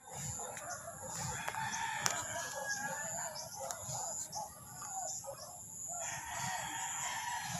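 Chickens calling, a rooster crowing among them, with a dip in the calls about five seconds in.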